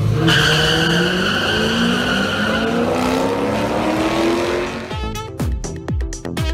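Drag-race cars launching and accelerating, the engine note climbing steadily in pitch for about four seconds. About five seconds in this gives way to edited intro music with falling bass sweeps and sharp hits.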